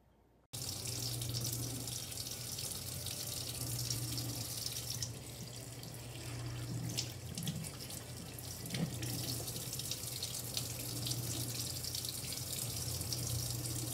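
Kitchen faucet running into a stainless-steel sink, the stream splashing onto a dish cloth held in a hand beneath it. It starts suddenly about half a second in and then runs steadily.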